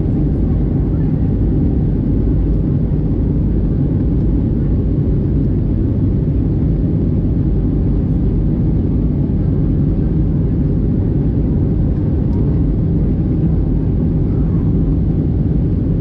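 In-flight cabin noise of an Airbus A320-214: a steady, even low rumble of airflow and its CFM56 engines, heard at a window seat behind the wing.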